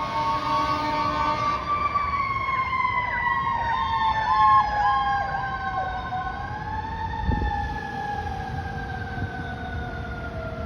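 Fire truck siren wailing, its pitch sliding slowly down, with a brief rise about halfway through. A quick repeated chirping, about two a second, runs over it for a few seconds near the middle.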